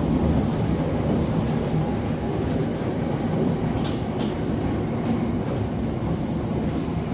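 Steady running noise heard inside a Class 707 electric multiple unit: an even rumble with a low hum underneath.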